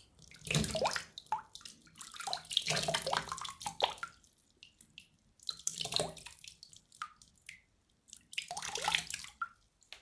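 Water splashing: four bursts of splashing and sloshing, the middle-early one the longest, with scattered drips and small splashes between them.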